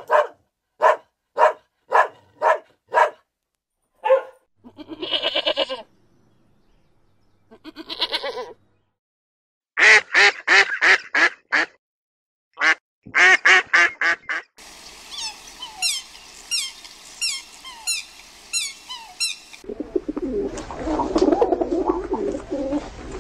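A sequence of animal calls: about six short calls at the start, then greylag geese honking in quick runs, a stretch of high, falling chirps, and pigeons cooing near the end.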